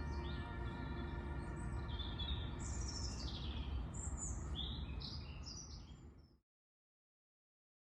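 Small birds chirping over a steady low outdoor rumble, with faint music tones underneath. Everything fades out to silence about six seconds in.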